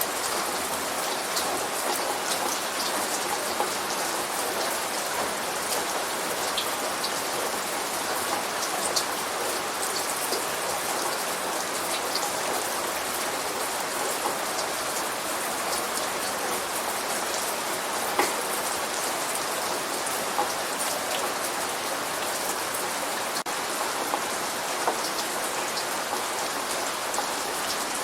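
Steady light rain falling on a surface, with many individual drops ticking close by over an even patter.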